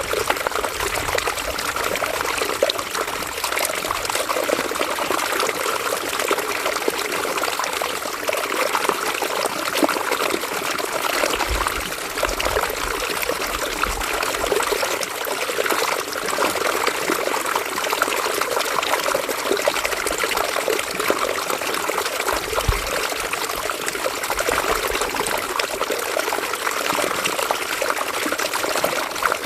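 River water running and trickling over stones, a steady babbling rush with close, fine splashing.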